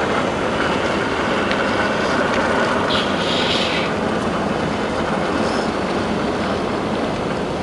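1/10-scale RC crawler truck driving over rough ground: a steady drone of its electric motor and gears with the rustle of tyres on the terrain.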